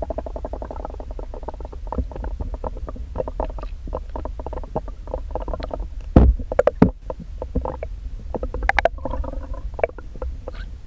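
Underwater recording in sea water as a fishing lure is retrieved past the camera: a steady low rumble of water moving over the housing, with scattered small clicks and taps and one loud knock about six seconds in.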